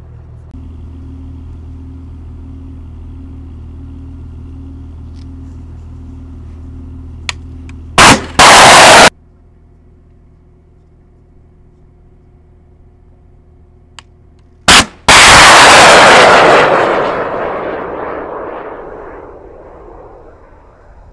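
FGM-148 Javelin missiles fired from a Stryker's CROWS-J launcher, twice. Each time a short sharp crack of the launch motor is followed about half a second later by a much louder blast as the flight motor ignites. The first blast cuts off abruptly after about a second; the second fades over about five seconds as the missile flies away downrange. Before the first shot, the Stryker's diesel engine runs steadily under a repeating beep.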